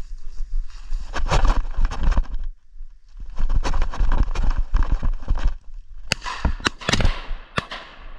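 Rustling clatter in two bursts, then several shotgun shots in quick succession near the end, each with a short echo, as shooters fire on a flushed game bird.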